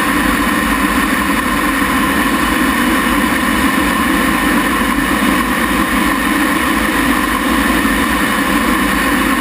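T-33 jet trainer's Allison J33 turbojet running, a loud, steady rush with a few constant tones that hold level and pitch throughout.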